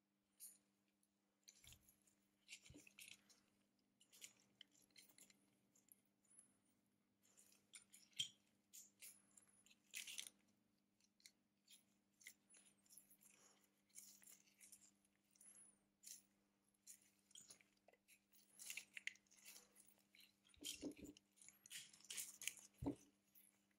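Quiet, irregular clicks, taps and scratchy rustles of small tools and phone parts handled during smartphone repair work, with a few sharper knocks, over a faint steady hum.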